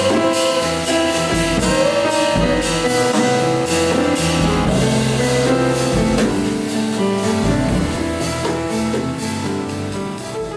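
Live jazz band playing an instrumental passage: piano, drum kit with cymbals, and bass guitar together. The music fades near the end.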